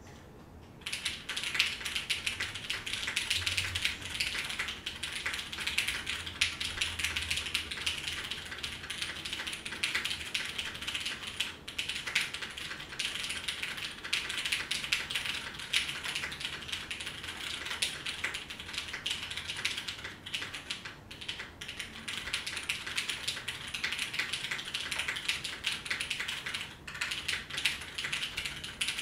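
Fast, continuous typing on a DN SVJ custom mechanical keyboard with an aluminium plate, Nixie switches lubed with Krytox 205g0, and GMK keycaps. The keystrokes start about a second in, with a few brief pauses.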